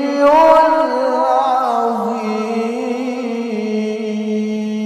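A male qari reciting the Quran in the melodic tilawah style. The first two seconds are an ornamented run of quick pitch turns, and after that he holds one long steady note.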